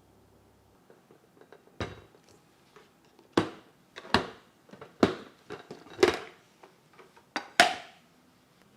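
Food storage containers being handled and set down, a series of sharp knocks and clatters about once a second.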